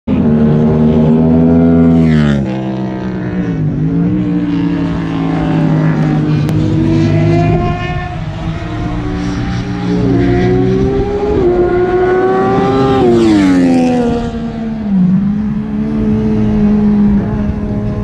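Track-day cars lapping a race circuit, engines revving up through the gears. Two cars pass close by, about two seconds in and again near fourteen seconds, each engine note dropping in pitch as it goes past.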